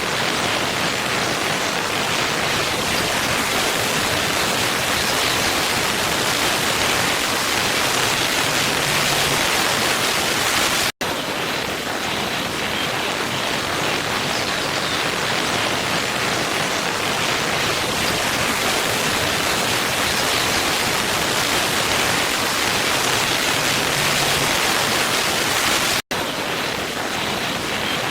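Waterfall: a steady, even rush of falling water. It cuts out for an instant twice, about 11 seconds and 26 seconds in.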